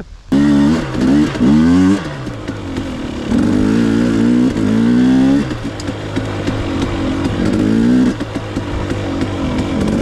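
Two-stroke dirt bike pulling away hard and revving, starting suddenly about a second in. Its pitch climbs and drops back several times as it accelerates along the trail.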